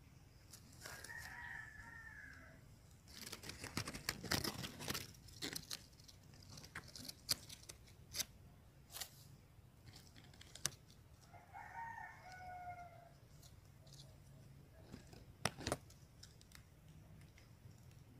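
A rooster crowing twice, about ten seconds apart. Between the crows there is crackling and rustling of dry leaves, with scattered sharp clicks.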